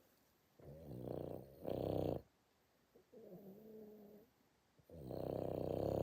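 Boston terrier snoring in its sleep. Two loud snores, each building up over about a second and a half, come about four seconds apart, with a quieter breath of wavering pitch between them.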